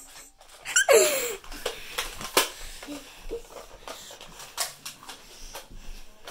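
A child's short squeal falling in pitch about a second in, then scattered soft thumps and rustling as pillows and bedding knock and brush against the phone.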